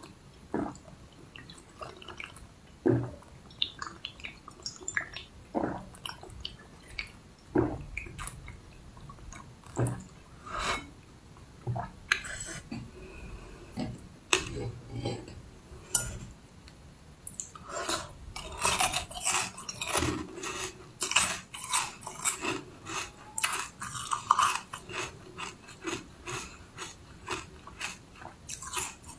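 Close-miked eating sounds: wet mouth clicks and sips spaced out at first, then a dense run of quick, crisp crunching chews about two-thirds of the way through.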